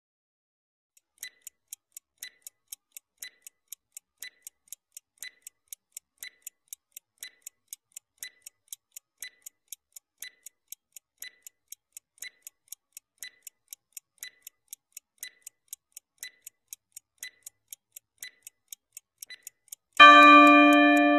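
Countdown-timer sound effect: a clock ticking about twice a second, alternating tick and tock. Near the end the ticking stops and a loud, steady electronic tone sounds as the countdown runs out.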